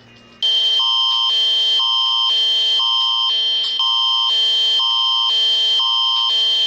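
Canadian Alerting Attention Signal, the Alert Ready emergency alert tone: a steady high tone under lower chords that switch back and forth about twice a second. It starts about half a second in.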